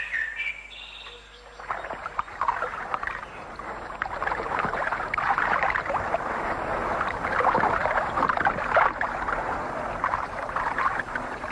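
Water splashing and lapping, an irregular, continuous sloshing that starts about two seconds in.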